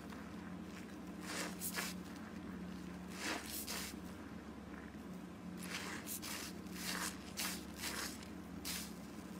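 A wet, suds-soaked sponge squelching in soapy water as hands press and squeeze it, in a series of short squishes a second or so apart, over a faint steady low hum.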